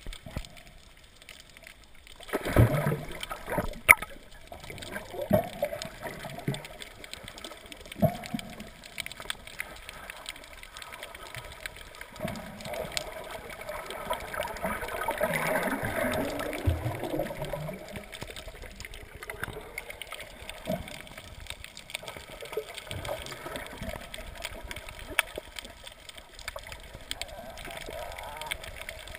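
Water gurgling and bubbling, heard with the microphone underwater, with sharp knocks now and then, the loudest ones a few seconds in.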